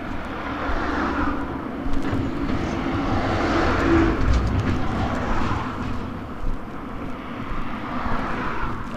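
Road traffic passing close by, the noise swelling to its loudest about four seconds in and then easing off.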